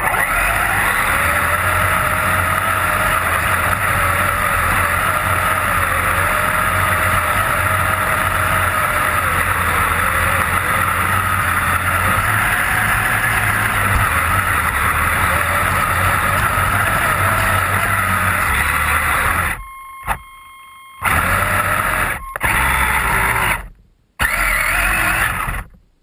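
Electric drive motor and gearbox of a Kyosho Blizzard SR radio-controlled snowcat running under throttle, with its rubber tracks churning snow, picked up close by a camera mounted on the vehicle. A steady wavering whine over a low rumble, cutting out and back in several times near the end as the throttle is let off.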